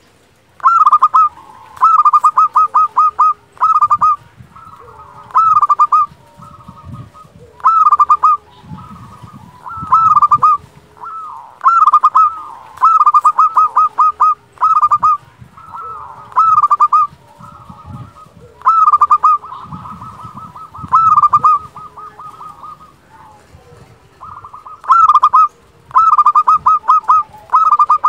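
Zebra dove (perkutut) singing: clear, flute-like phrases of quick staccato cooing notes, repeated every second or two.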